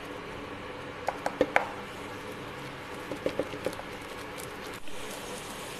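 Thick curry gravy simmering in a pan and being stirred with a wooden spatula: a few wet pops and plops of bursting bubbles in two short clusters, about a second in and about three seconds in.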